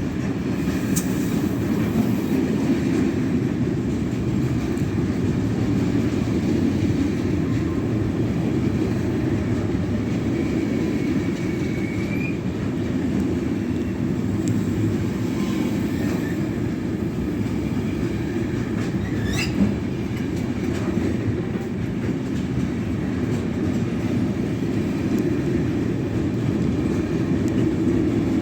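A train rolling past on the rail line, its wagons' wheels making a steady rumble on the track. A single sharp click sounds about two-thirds of the way through.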